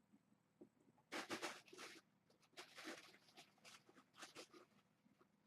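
Faint scratchy rustling in several short bursts, the loudest about a second in.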